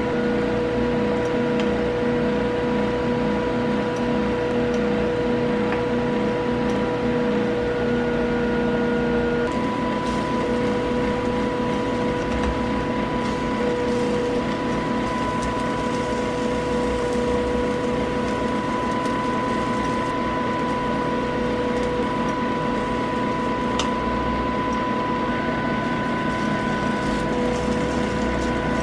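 A steady mechanical hum, like a small motor running.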